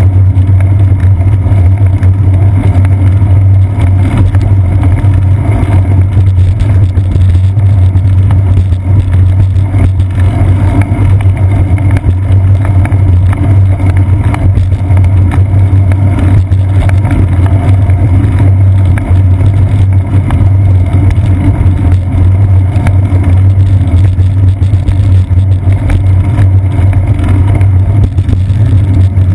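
Loud, steady low rumble picked up by a seat-post-mounted GoPro Hero 2 on a moving bicycle: wind and road vibration buffeting the camera in its housing, unbroken throughout.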